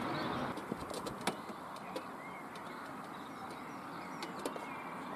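Steady outdoor background noise with a few faint bird chirps and some light clicks.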